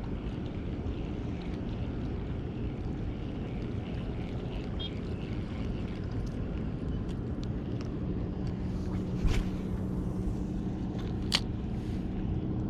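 Steady low rumble of wind and water around a small outrigger canoe at sea, with a faint engine-like hum coming in about two-thirds of the way through. A dull thump and then a single sharp click come near the end, as the spinning rod and reel are handled.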